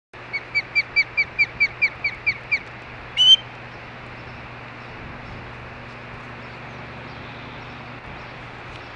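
Osprey calling: a quick run of about ten short, high, down-slurred whistled chirps, about four a second, then one louder, harsher call, over a steady low hum.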